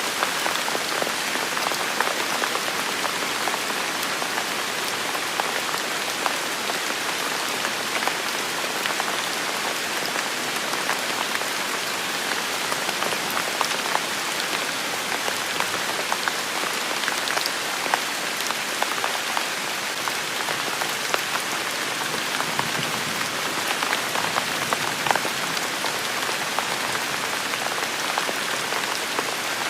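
Steady rain falling on hard surfaces, an even hiss dotted with the ticks of individual drops.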